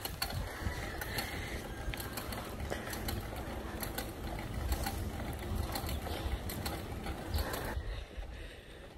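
Bicycle drivetrain clicking and rattling as the bike is pedalled up a climb, over a low rumble of wind and tyres. It quietens near the end.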